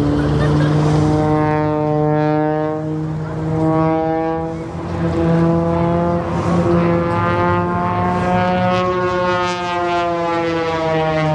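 An aircraft flying over, a loud steady engine drone whose tone sweeps slowly up and down as it passes.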